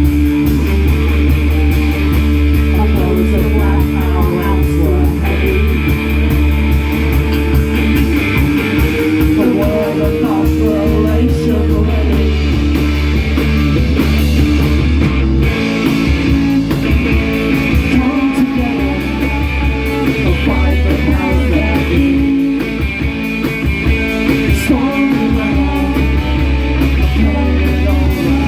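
Rock band playing live, electric guitars and bass with drums, in an instrumental stretch of an indie-pop song, heard loud and dense through a phone-style audience recording.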